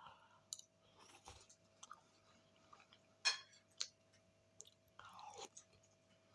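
Quiet chewing of a mouthful of pasta bake, with scattered wet mouth clicks and smacks. Two sharper smacks come a little after three seconds in.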